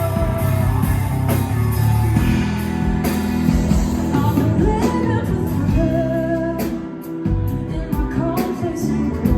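A rock song played by a band: a singer holds wavering sung notes over guitar, bass and drums.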